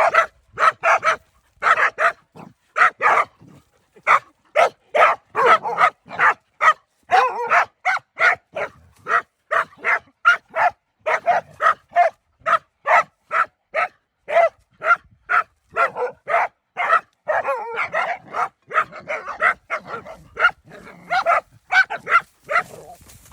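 Dogs barking steadily and rapidly, about two barks a second with some barks overlapping, as a pack of dogs bays at a snake.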